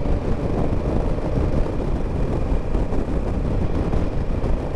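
Motorcycle cruising at highway speed, about 85 km/h: steady wind rush on the microphone mixed with engine and road noise.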